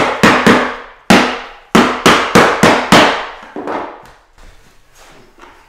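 Claw hammer knocking a new pine floorboard section down into its gap in an old floor, seating it home: about nine sharp blows in quick runs, each ringing briefly, then a few lighter taps about three and a half seconds in before it stops.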